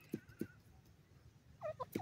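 Francolin giving soft calls: a brief wavering trill early on, then a quick run of short falling notes near the end, over a few dull low knocks.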